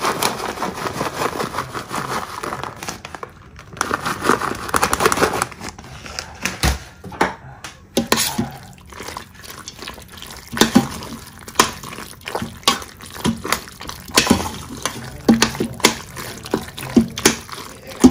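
Rustling for the first five seconds or so as grated cheddar goes onto the pasta. Then a spoon stirs wet, sauced penne in the stainless steel inner pot of an Instant Pot electric pressure cooker, with squelching and irregular clicks and scrapes of the spoon against the pot.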